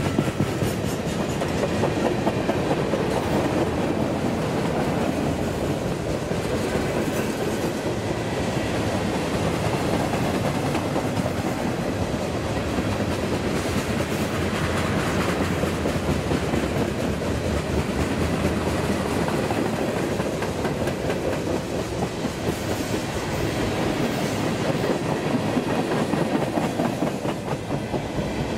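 CSX mixed freight train's boxcars and coil cars rolling past, a steady rumble of steel wheels on rail with clickety-clack over the joints.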